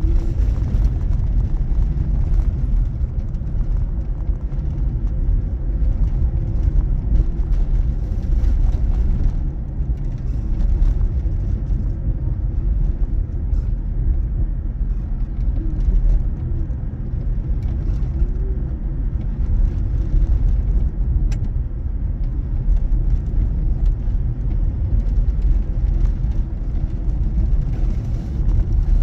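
Steady low rumble of a car driving, with no breaks or changes.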